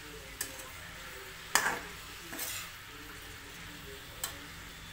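Spatula scraping and knocking against a kadhai as shredded cabbage is stir-fried, over a faint steady sizzle. About four short strokes, the loudest about a second and a half in.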